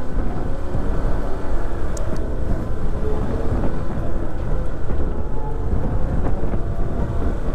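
Wind buffeting the microphone of a moving Honda ADV 150 scooter, a steady low rumble with the scooter's single-cylinder engine running underneath.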